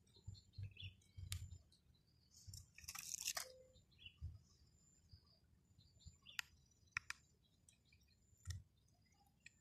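Faint handling of small plastic toy parts: a few light clicks, a short scraping crunch about three seconds in, and sharper clicks later on. Faint bird chirps in the background.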